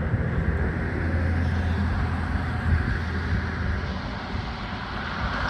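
Outdoor background noise with a steady low rumble.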